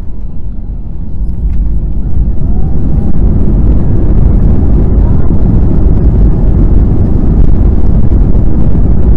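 Airliner's jet engines and landing gear rumbling along the runway on the takeoff roll, heard from inside the cabin. The low rumble swells over the first couple of seconds, then holds loud and steady.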